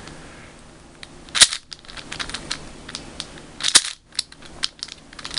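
Moyu Weisu 4x4 speed cube's plastic layers being turned by hand, giving sharp plastic clacks as they snap into place, the two loudest about a second and a half in and just before four seconds, with lighter clicks between. The turns test its corner cutting: a face is turned while a neighbouring layer is still offset.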